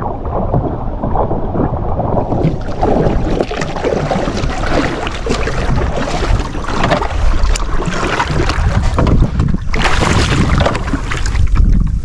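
Small boat under way on the water, with wind buffeting the microphone.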